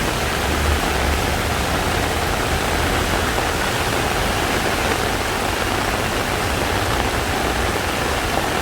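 Heavy rain pouring down in a steady hiss, with the low rumble of traffic moving through flooded streets, strongest about a second in.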